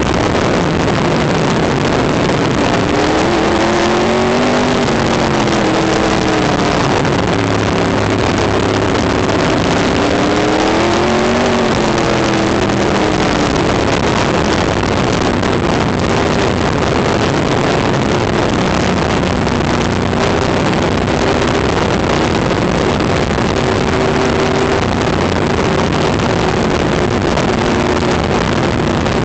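Open-wheel race car's engine running hard, heard from onboard with heavy wind rush over the microphone. Its pitch dips and climbs twice in the first half, then holds steadier.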